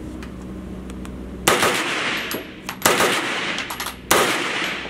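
ADC 9mm pistol-calibre carbine fired rapidly, with three loud strings of shots starting about a second and a half in, each ringing on in the room. The shots come quickly, the trigger resetting fast.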